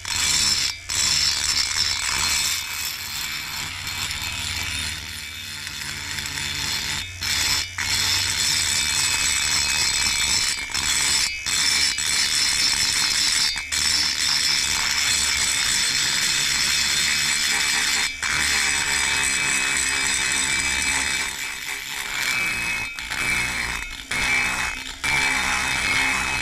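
Flexible-shaft rotary grinder spinning a burr in the intake port of a Husqvarna 350 chainsaw cylinder, a steady high grinding rasp as it rough-cuts the lip at the port floor down. The rasp breaks off briefly several times.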